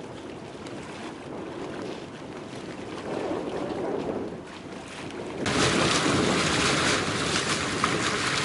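Wind and water rushing past a moving boat on choppy open water. About five seconds in, the sound jumps abruptly to a louder, fuller rush of wind and water.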